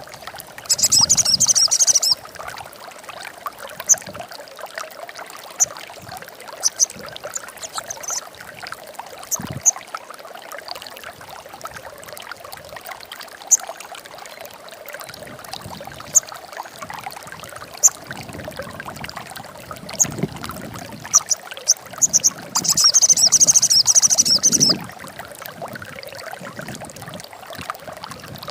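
Sogon bird calling: two loud, rapid high chattering trills of about one and two seconds, one about a second in and one near the end, with single high chips scattered between, over a steady watery hiss.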